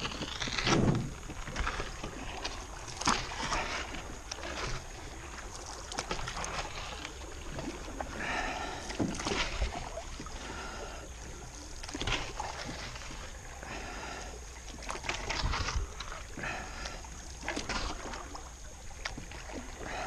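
Water splashing and sloshing around a small jon boat in a shallow river, with scattered knocks and scrapes against the hull.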